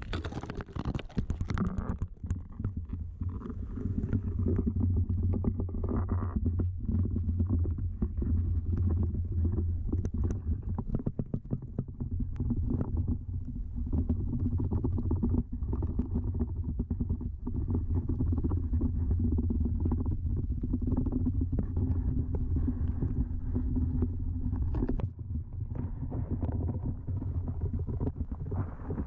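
Muffled low rumbling with many small knocks and rustles throughout.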